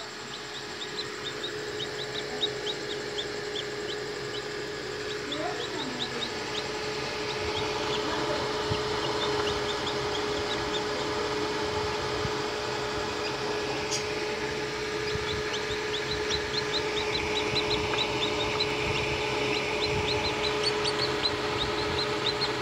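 Chicks peeping inside pipped eggs in an incubator: runs of short, high peeps, busier in the second half. Under them runs the incubator's steady hum.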